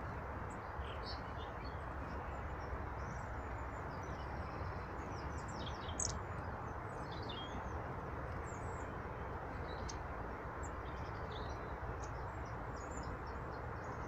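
Small songbirds chirping and calling in short, high notes scattered throughout, over a steady background hiss.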